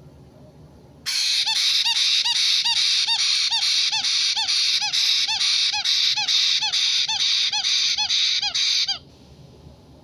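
White-bellied caique chick giving a loud, repeated begging call, about three harsh arched notes a second, starting suddenly about a second in and cutting off abruptly near the end.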